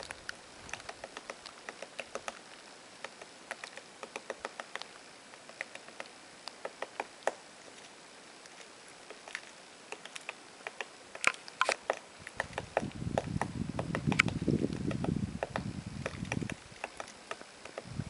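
Woodpecker pecking and picking at the bark of a dead tree while foraging: irregular dry taps, a few a second, with a quicker, louder cluster a little past the middle. A low rumble comes in for several seconds in the later part.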